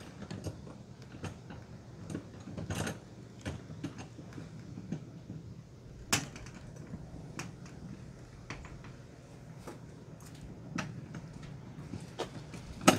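Scattered clicks and knocks of hands working a latch on the folded-down roof of a Rockwood A212HW A-frame camper, with a sharp knock about six seconds in and the loudest one near the end.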